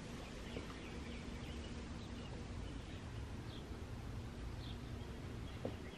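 Faint birds chirping now and then, short calls scattered through, over a low steady outdoor rumble.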